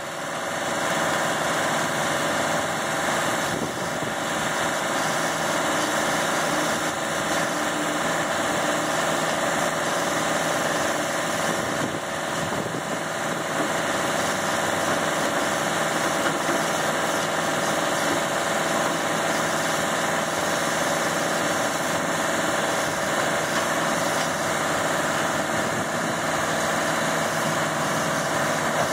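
Roto-Screen 454 portable trommel screen and a tracked excavator running together at a steady level, their engines droning without let-up as topsoil is loaded into the hopper and screened.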